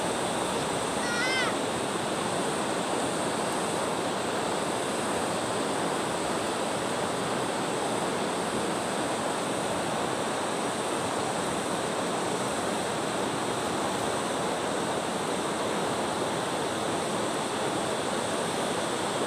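Shallow river water rushing over rocks, a steady even rush, with brief high chirps about a second in.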